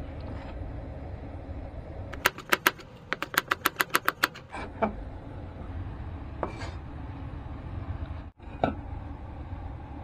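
A quick run of about a dozen sharp knife chops on a cutting board, a few more single knocks after it, over a steady low hum.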